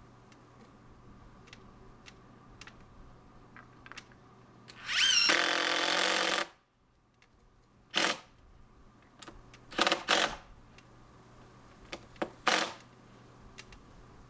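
Power drill running: one trigger pull of about a second and a half that spins up and stops sharply, then four short bursts, with light clicks and handling in between.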